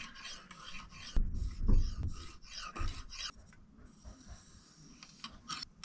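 Steel kitchen knife blade scraping against an abrasive in short, irregular rasping strokes, with a few dull knocks about a second in and near the three-second mark; the strokes grow fainter after about three seconds.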